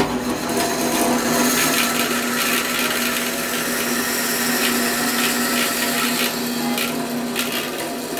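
Bandsaw cutting wood: a steady motor hum under the hiss and rasp of the blade in the cut.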